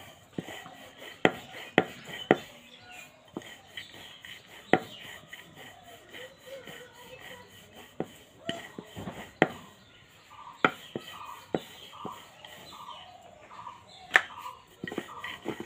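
A rolling pin rolling flour-dusted dough on a round wooden board, with a soft rubbing sound and sharp wooden knocks at uneven intervals, roughly once a second, as the pin and board clack together.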